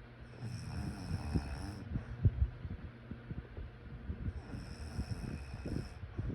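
A sleeping person snoring: two slow breaths about four seconds apart, each with a hissing stretch of about a second and a half, over an irregular low rattle.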